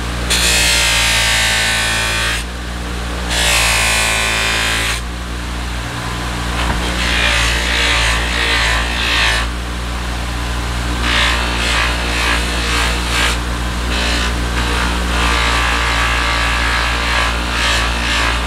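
Bench buffer motor running with a steady hum while a steel knife blade is pressed against its spinning soft cloth wheel loaded with red rouge compound. About five passes of rubbing, each a couple of seconds long, with lighter moments between them: the final fine-compound polishing stage, meant to take the haze out of the blade.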